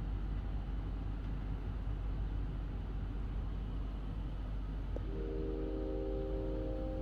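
Background music in a quiet stretch: a steady low hum and hiss, with held keyboard notes coming in about five seconds in.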